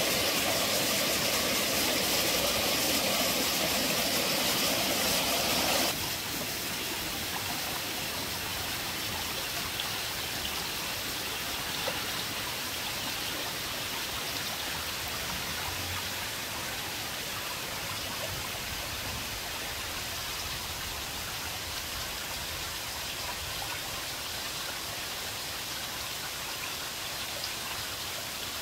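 Splashing water of a small waterfall trickling down a clay bank. About six seconds in it gives way abruptly to the quieter, steady sound of a shallow stream running over beach stones.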